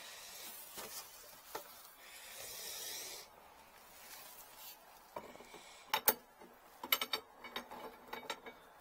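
Metal pipe and fittings being handled: a rubbing, scraping noise for the first few seconds, then a run of sharp metal clinks and taps from about five seconds in, the loudest about six seconds in.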